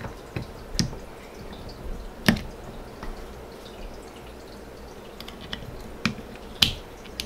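A few small, sharp clicks and taps of spinning-reel parts being handled as the spool is fitted back onto the reel's shaft, the loudest about two seconds in.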